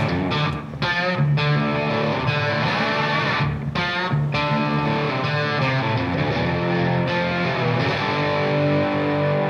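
Instrumental intro music led by an electric guitar, playing a run of changing notes.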